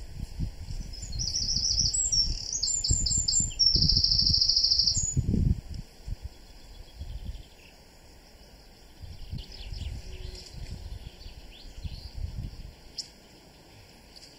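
Wind buffeting the microphone in gusts, with a songbird singing fast trilled phrases over it for the first few seconds; a few fainter chirps follow as a second gust comes and goes.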